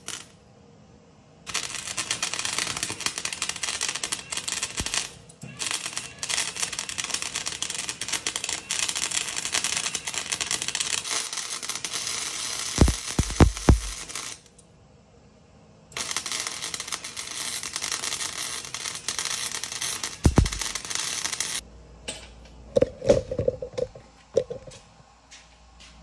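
Arc welding a steel patch plate into a truck's floor: three runs of steady crackling and hissing from the arc, each several seconds long with short pauses between them. A few sharp knocks fall between runs, and some clatter follows the last run, which stops about 22 seconds in.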